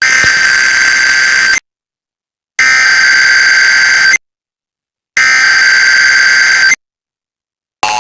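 Emergency Alert System SAME header: three identical bursts of digital data tones, each about a second and a half long with about a second of silence between them. Just before the end, the steady two-tone EAS attention signal begins.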